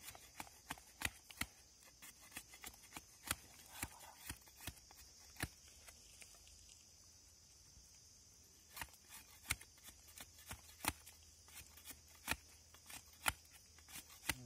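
Curved billhook knife cutting into a palmyra-palm stalk in short, sharp, irregular strokes, shaving it and cutting holes through it. The strokes come about one or two a second, with a pause of a couple of seconds in the middle.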